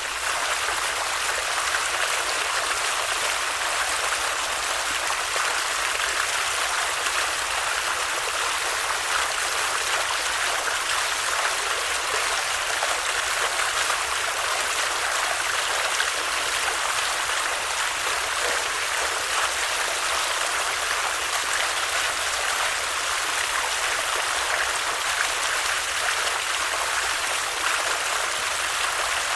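Stream of water flowing steadily, a continuous rushing without breaks.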